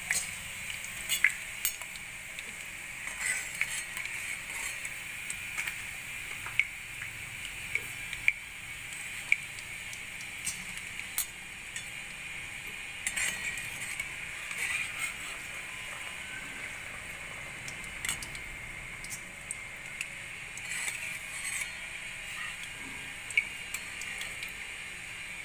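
Gathia strands deep-frying in hot oil in a kadhai, a steady sizzle, with scattered sharp clinks and taps of a perforated metal slotted spoon (jhara) turning and lifting them against the pan.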